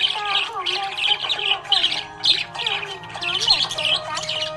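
A flock of budgerigars chattering: a dense, continuous run of rapid chirps, squeaks and warbling whistles.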